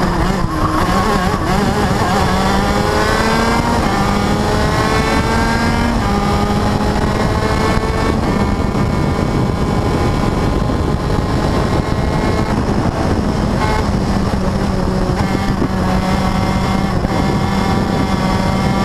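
Onboard sound of an open-wheel race car's engine running hard down a straight, its pitch climbing as it accelerates, over a steady rush of noise.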